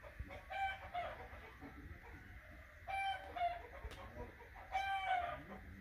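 Chickens clucking, three short calls spaced a couple of seconds apart, over faint background noise.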